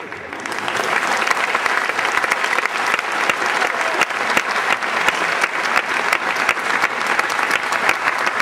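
Audience applauding: many hands clapping, swelling over the first second and then holding steady.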